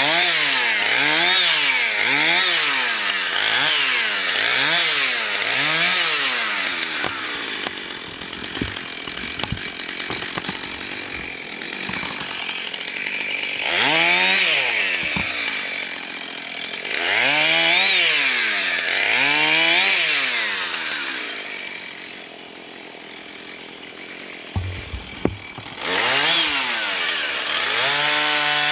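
Husqvarna two-stroke chainsaw cutting through dead ash. The engine pitch rises and falls about once a second as the saw works the cut, in several bouts, easing back to a lower, quieter run in between before revving up again near the end.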